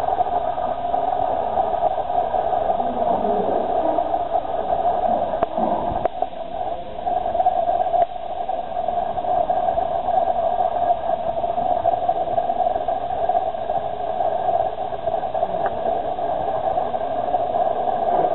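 Underwater recording of Atlantic bottlenose dolphin echolocation: a steady, dense buzz of clicks.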